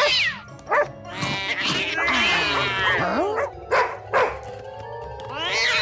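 Cartoon characters' voices imitating animal calls, barks and cat-like yowls, in several drawn-out gliding cries over background music, with a few short knocks in between.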